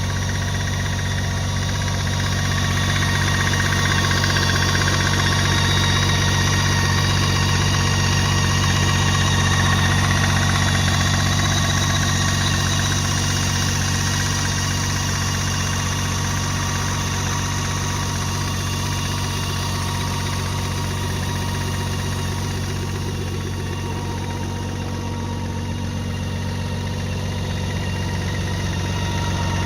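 2017 BMW K 1600 GT's inline-six engine idling steadily, with the ticking from the engine that the owner is recording as an unexplained noise.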